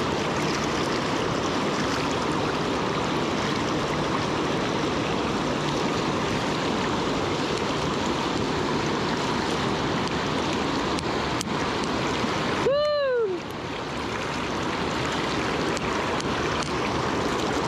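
Rushing water of a fast, shallow river riffle, steady and close. About two-thirds of the way through, a short pitched sound rises and falls in under a second.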